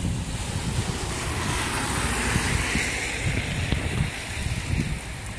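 Storm wind gusting on the microphone in low rumbles, over a steady hiss that swells around the middle and fades toward the end.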